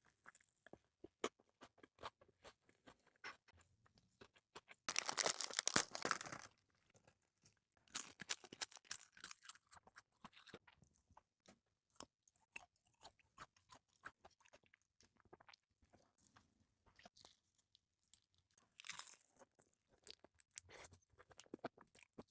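Close-miked eating sounds: wet chewing and mouth clicks while eating raw red shrimp sashimi with salmon roe mayonnaise sauce. The loudest and densest stretch comes about five seconds in, with shorter clusters around eight seconds and near the end.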